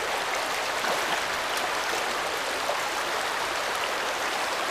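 Steady rush of a shallow river riffle, water running over the stream bed.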